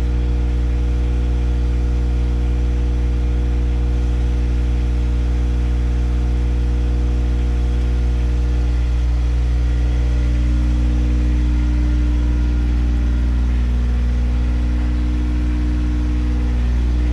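An engine running steadily at a constant idle-like speed, with an even hum.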